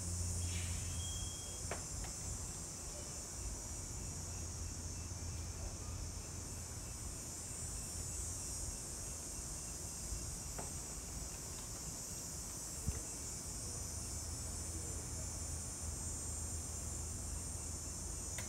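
Steady high-pitched chorus of insects, with a low steady hum underneath.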